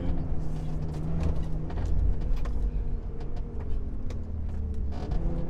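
Mitsubishi Pajero 4x4 driving over desert sand: a steady engine drone whose pitch sinks slowly, with frequent sharp clicks and knocks throughout.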